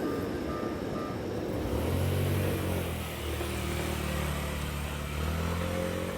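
A vehicle engine running with a low, steady hum that comes in about two seconds in.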